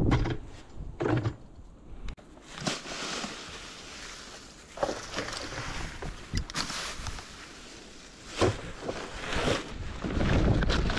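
Dry fallen leaves rustling and crackling as they are scooped up with hand-held leaf grabbers and dropped into a plastic tub, in irregular bursts with a few knocks of the tools. Near the end a louder, fuller rush as the leaves are tipped from the tub into a woven garden-waste sack.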